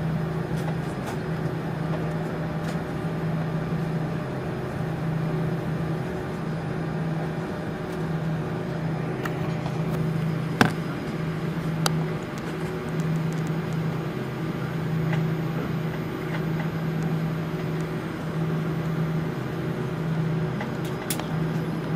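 Cabin noise of an Airbus A340-300 taxiing: a steady hum from its four CFM56 engines at idle, with a low tone that throbs on and off. A single sharp click about halfway through.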